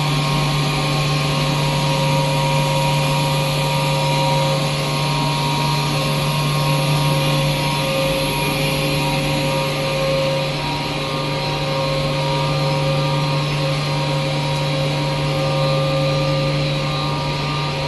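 HDPE pipe extrusion line running: a steady, loud machine hum from the extruder's drive and equipment, with a strong low drone, several constant higher tones and a hiss above.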